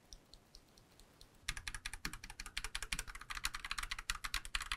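Typing on an Akko mechanical keyboard with CS Lavender Purple switches, which are light, tactile and pre-lubed. A few faint key clicks come first, then from about a second and a half in there is a quick, continuous clatter of keystrokes.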